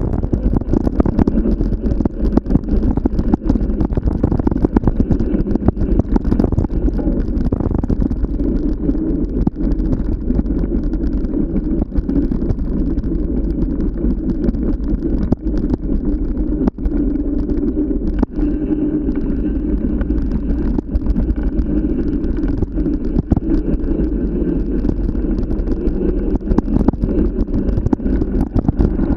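Steady low rumble of a vehicle in motion, with wind buffeting the microphone.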